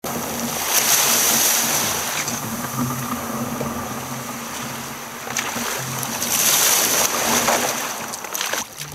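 Choppy sea water rushing and splashing around a sea kayak's hull, heard close up as an even roar that swells twice.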